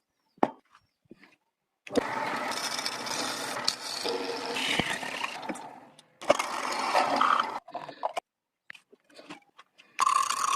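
Power tool working wood in two bursts of a few seconds each, dense and noisy with sharp clicks, broken by short quiet gaps; a steady whine starts near the end.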